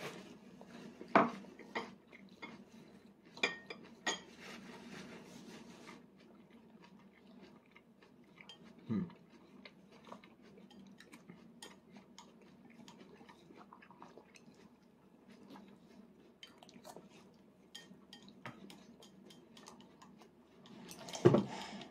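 A toddler's metal spoon scraping and clicking against a plastic divided baby plate, with scattered light clinks and some chewing. There is a short vocal sound falling in pitch about nine seconds in.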